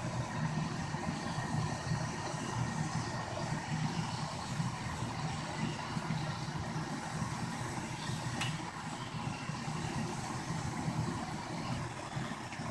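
Pot of water with panela heating on the stove, rumbling steadily as it comes up to the boil.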